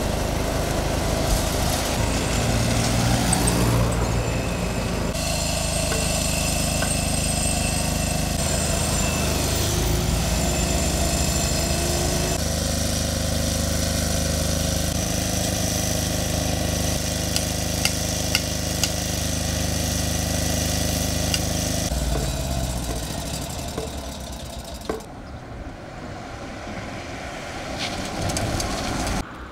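Motor engines running steadily, the sound changing abruptly several times from shot to shot. Near the end a vehicle draws closer and passes.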